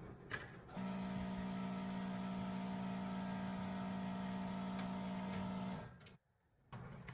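Steady electrical hum, one low pitch with overtones, starting just after a click and holding for about five seconds before cutting off abruptly.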